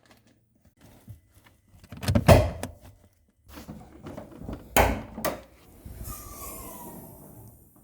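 Knocks and clunks of driving-light kit parts being picked up and set down on a workbench, three sharper ones spaced through the middle, then a short falling scrape near the end.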